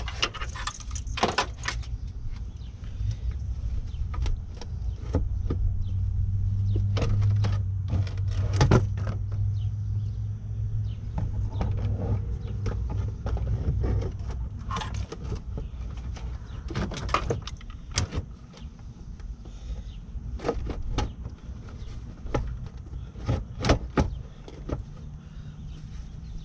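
Scattered knocks and clicks of a plastic air filter box and its lid being handled and fitted in an engine bay, over a steady low rumble.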